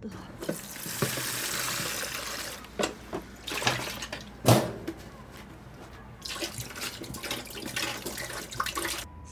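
A steady rush of splashing liquid, then knocks and clatter of dishes in a kitchen sink, the loudest about halfway. Near the end, wine glugs and splashes out of a glass bottle poured into a stainless steel sink, stopping suddenly.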